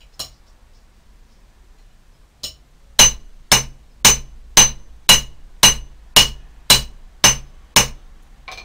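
Hammer striking a flat iron bar on an anvil. A light blow comes first, then about two and a half seconds in a steady run of about ten ringing blows starts, about two a second, and a lighter tap follows near the end.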